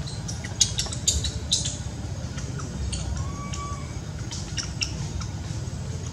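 Outdoor ambience: a steady low rumble under scattered sharp clicks and ticks, clustered in the first two seconds and again around four to five seconds in, with a short faint whistle-like tone about three seconds in.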